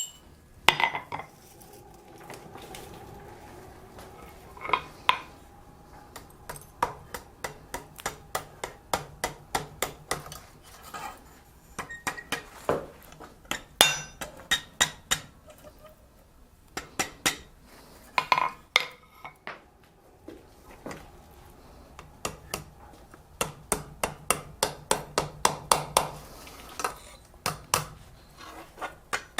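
Small hammer tapping on steel at the anvil, working a small steel snowflake ornament with light metallic strikes. The strikes come in runs of about two or three a second, with short pauses between runs.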